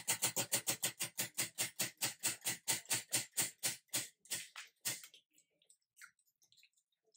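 Spinning prize wheel, its rim pegs ticking against the pointer: a fast run of clicks, about six a second, that slows steadily as the wheel loses speed and stops a little before five seconds in.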